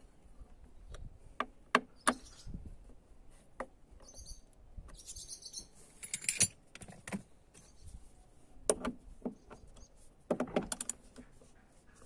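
Scattered metallic clicks and knocks of hand tools working on a BMW E36's door latch striker as it is set back on the door pillar and a ratchet is fitted to its bolt. A quick run of clicks comes near the end, and a short rustling noise comes around the middle.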